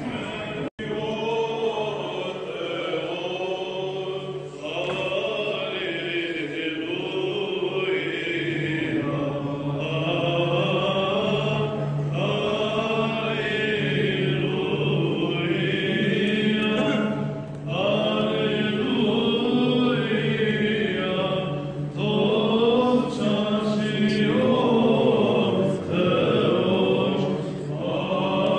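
Greek Orthodox Byzantine chant sung by men's voices in Greek, a slow ornamented melody over a steady low held note, with short breaks between phrases.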